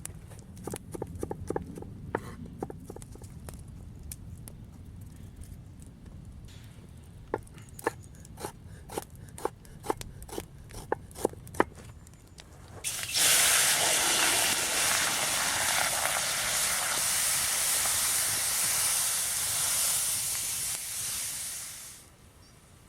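A series of light, irregular knocks, then a loud steady hiss that starts suddenly, runs for about nine seconds and fades out near the end.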